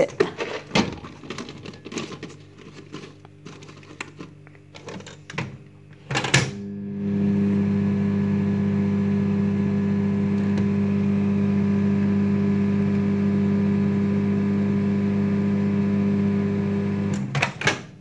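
Clicks and knocks of a plastic container and microwave door being handled, then a sharp click about six seconds in as a dial-knob countertop microwave oven starts. It runs with a steady hum for about ten seconds, then cuts off suddenly near the end, followed by a few clicks.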